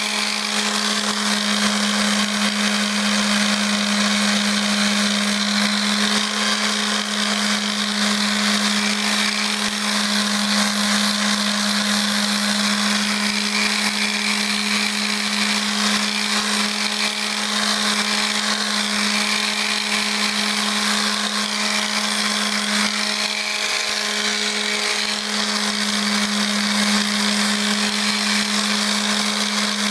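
Electric mouse detail sander running steadily while sanding a balsa-wood dragster body: a constant motor hum with a dense hiss of sandpaper on the soft wood.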